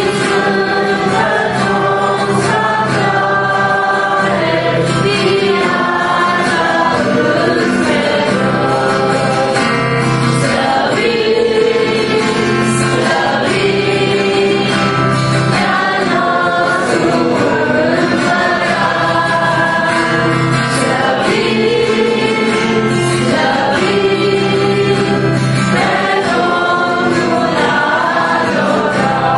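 Two women and a man singing a Christian worship song together, accompanied by an acoustic guitar.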